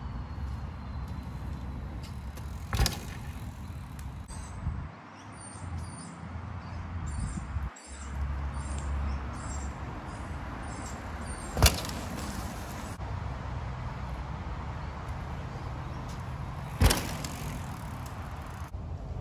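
Bicycle riding on dirt jump trails: a steady low rumble of tyres and wind on the microphone, broken by three sharp knocks spread well apart, typical of wheels landing or hitting the dirt.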